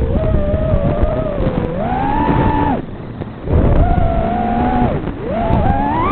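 FPV quadcopter's motors and propellers whining, the pitch rising and falling with throttle changes and dropping off briefly about three seconds in. Strong wind gives a low rumble underneath.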